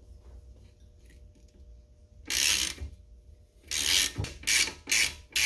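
Hand ratchet with a 17 mm socket backing off the nut of a car's upper ball joint. About two seconds of quiet, then five short bursts of ratchet-pawl clicking as the handle is swung back and forth.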